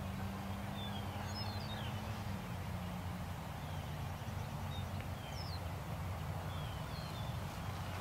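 Outdoor background of scattered short, high bird chirps over a steady low hum.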